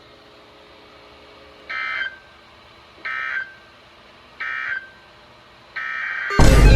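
Emergency Alert System end-of-message code from a weather alert radio: three short, buzzy digital data bursts about a second and a half apart, over faint radio hiss. Near the end another data burst begins and a loud alert tone cuts in, the start of the next alert.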